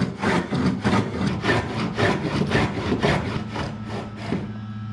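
Dado plane cutting a dado in a pine board in quick short strokes, about three a second, the blade scraping off shavings; the strokes stop about four and a half seconds in. A steady low hum runs underneath.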